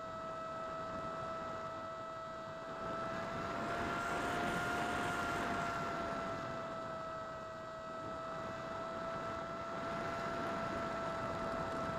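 Electric motor and propeller of a Versa Wing RC flying wing, heard from on board, running at steady throttle with a steady whine. About four seconds in, the pitch rises slightly as a rush of wind swells, then settles back.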